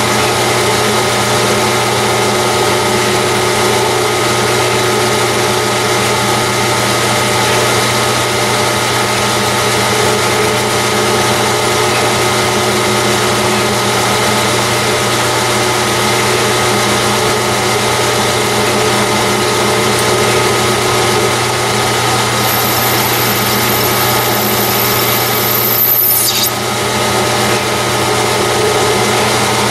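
Metal lathe running steadily with its gear whine while a threading tool takes another pass to deepen the internal 24 TPI thread in a titanium suppressor tube. A thin high whine joins about three-quarters of the way through and cuts off a few seconds before the end.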